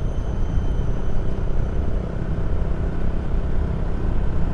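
Wind rushing over an action camera's microphone on a moving motorcycle, a steady fluttering rumble, with the KTM Duke 200's single-cylinder engine running underneath.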